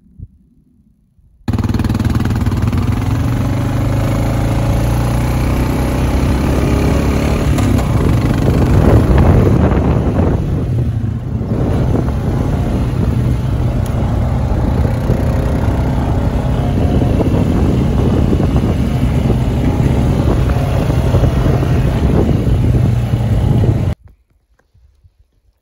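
Strong wind buffeting the microphone, a loud rumbling rush with wavering gusts. It starts and cuts off abruptly.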